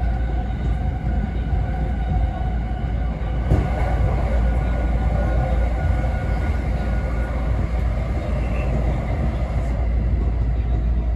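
Running sound inside an E217 series Green car cruising on the line: a steady rumble of wheels and running gear with faint steady tones. About three and a half seconds in, another train passes close alongside on the adjacent track, with a sudden louder rush of air and wheel noise that ends near the end.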